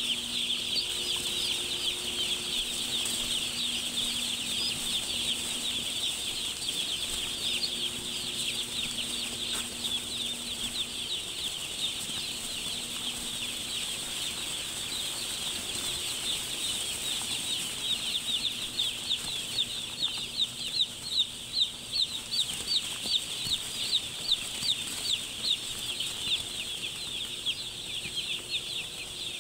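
Thousands of chicks peeping together in a steady, high-pitched chorus. In the last third, single loud peeps from chicks close by stand out, several a second.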